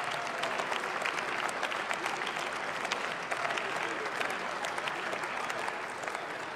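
Applause from members of parliament: many hands clapping steadily, easing off slightly toward the end.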